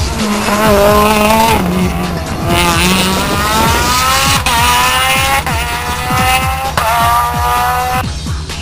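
Rally car engine under hard acceleration. The revs climb and drop sharply at each upshift, with three quick gear changes in the second half.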